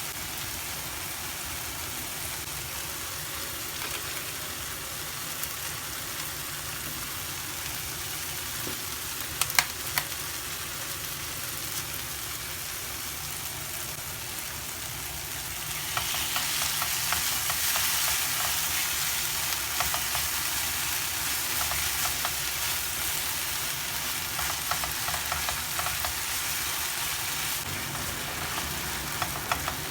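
Food frying in hot oil in a pan, sizzling steadily with stirring; a few sharp knocks come about ten seconds in. About halfway through the sizzle grows louder and brighter, with lots of crackling.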